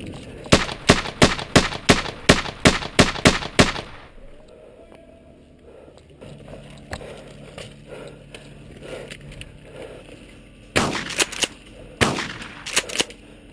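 Airsoft gun firing quick single shots, about three a second, some eleven in a row, then after a lull two more short strings of shots near the end.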